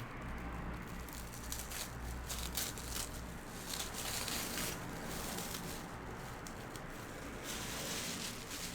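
Newspaper packing rustling and crinkling as it is handled and unwrapped by hand, in a run of irregular crackles.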